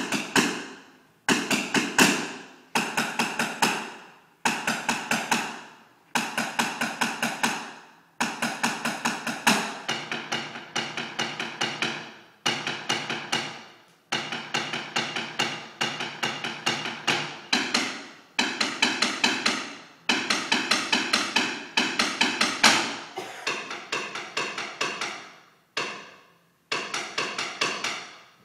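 Drumsticks beating on the steps of a stepped ziggurat platform: fast rolls of many sharp strokes, each roll ringing and then stopping, starting again every second or two.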